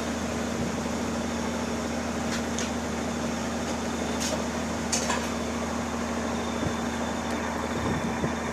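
Engine on a fishing boat running with a steady hum and hiss, with a few short clicks about halfway through.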